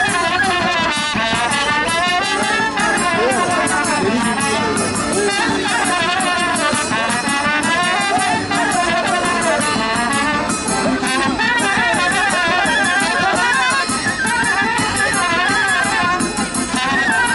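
Brass band playing a fast traditional folk dance tune, trumpet-like melody lines running in quick ornamented runs over a steady drum beat.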